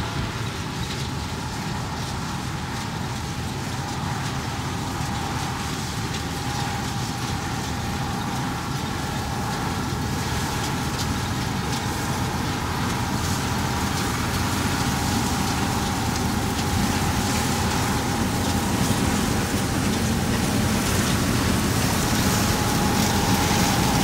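Old combine harvester running in the field while cutting soybeans, a steady engine and machinery drone that grows gradually louder as the combine comes closer.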